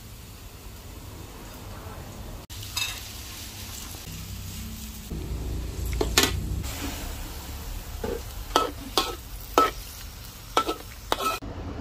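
Food sizzling as it fries in a pan while being stirred, with several sharp knocks of a cooking utensil against the pan, mostly in the second half.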